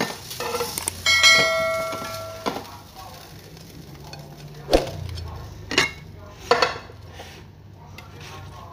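Metal kitchen utensils, tongs and a knife, clinking against plates and pans while fried pork and eggs are served. About a second in, one metallic clang rings on for over a second. A few sharp clinks follow at intervals of about a second.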